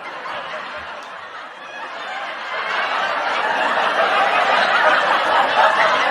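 A crowd of people laughing together, growing louder over the first few seconds and then holding.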